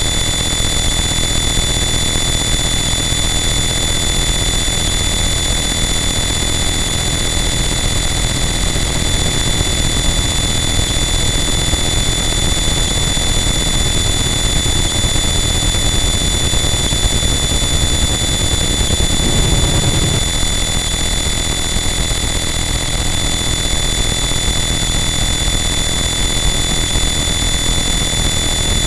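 Harsh noise wall: a loud, unchanging wall of dense static with steady high whistling tones held throughout, and a brief swell in the low end about twenty seconds in.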